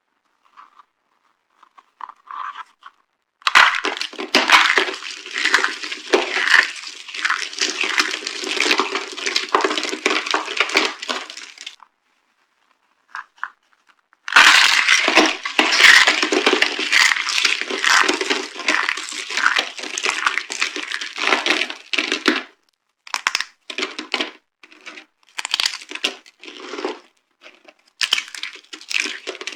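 Dry soap boxes being crushed: dense crunching and crackling in two long runs of about eight seconds each, then a string of shorter crunches near the end.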